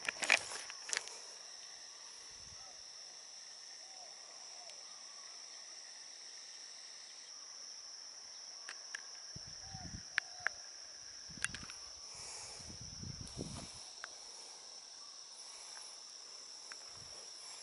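Insects shrilling steadily at one high pitch, with a few soft thumps and clicks scattered through.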